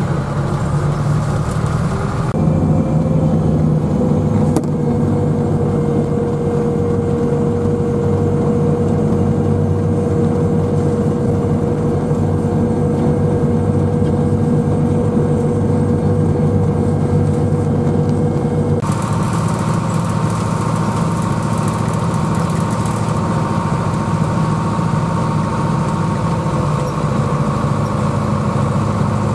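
Tractor engine running steadily while driving, heard from inside the cab, with a steady whine through the middle part. The sound changes abruptly twice, about two seconds in and again about two-thirds of the way through.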